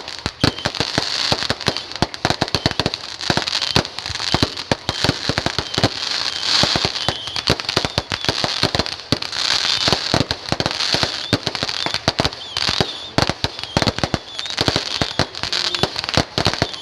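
Firecrackers and fireworks going off in a dense, continuous barrage: many sharp bangs and crackles a second, overlapping without a pause.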